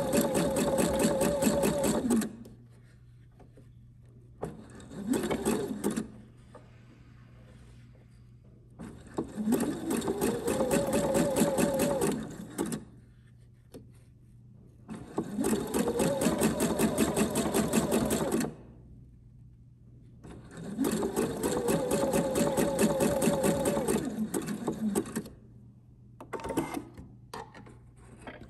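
Electric sewing machine stitching a zigzag seam in five separate runs with pauses between; in each run the motor's whine climbs as it speeds up, holds steady, then drops as it stops. A few short clicks near the end.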